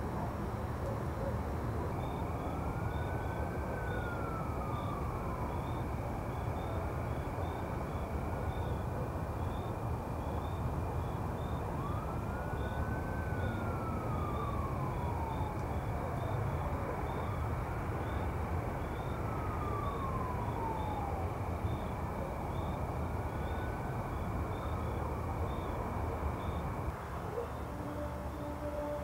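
Distant emergency-vehicle siren wailing, its pitch rising quickly and falling slowly about five times, over a steady low hum of city traffic. A thin, steady, high chirping runs alongside and stops near the end.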